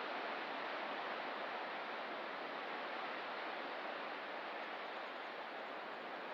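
Ocean surf washing in a steady, even hiss, with no single wave breaking out of it.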